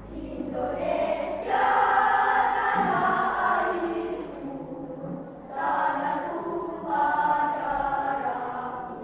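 Primary-school children's choir singing. The phrases swell loud about a second and a half in, ease off around the middle, and rise again twice toward the end.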